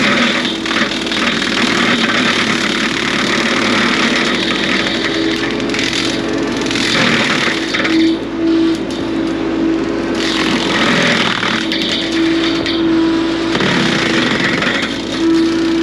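Bobcat E42 mini excavator running with its hydraulic brush cutter spinning: a steady hum, with louder surges of noise every few seconds.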